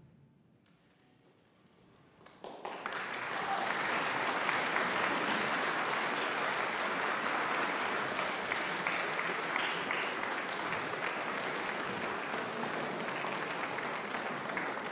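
Audience applause. It breaks out suddenly after about two seconds of hush following the last chord, builds within a second, then holds as a steady, dense clapping.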